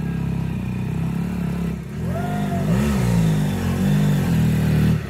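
BMW F800GS motorcycle's parallel-twin engine running at low speed, its revs rising and falling a couple of times.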